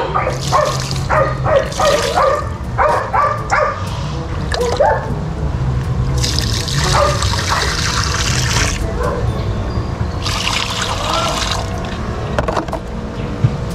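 Water poured from a stainless steel bowl through a fine-mesh hand net, splashing and trickling in two pours, the first about six seconds in and the second about ten seconds in; the net is straining live daphnia out of the water. Dogs barking repeatedly in the first few seconds.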